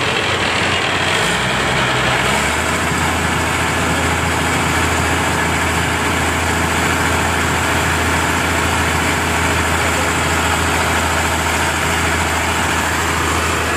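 Fishing boat's engine running steadily, a low, constant hum that grows louder about two seconds in and then holds.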